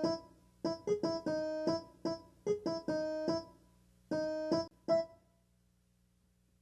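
Short melody of separate, clipped keyboard notes with a piano-like tone, stopping about five seconds in.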